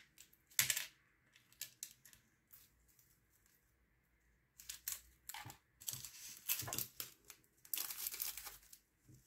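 Diamond-painting pen picking small plastic drills from a plastic tray and pressing them onto the sticky canvas: faint scattered clicks and crinkles. A few come early, it goes nearly quiet for a couple of seconds, then a busier run of clicking starts about halfway through.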